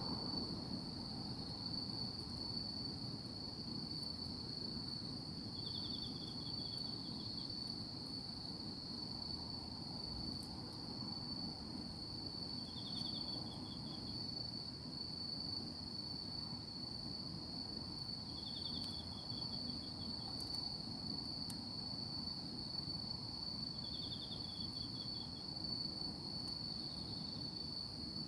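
Night insects calling: one keeps up a continuous high trill, while another gives a short run of rapid pulsed chirps about every five or six seconds.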